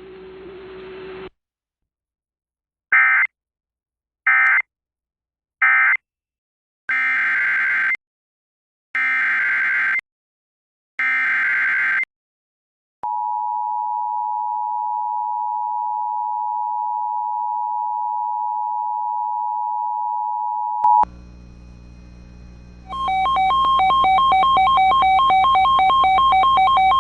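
Emergency Alert System tones: three short SAME end-of-message data bursts, then three longer SAME header bursts about a second apart, each a harsh digital screech, then the steady two-tone EAS attention signal for about eight seconds. Near the end a click, a low hum, then a repeating pattern of electronic tones.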